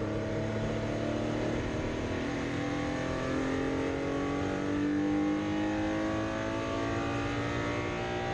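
Porsche 964's air-cooled flat-six engine running under load, its pitch climbing slowly and steadily as the car accelerates.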